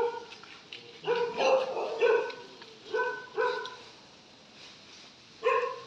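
A dog barking: about seven short, fairly high barks in an uneven series.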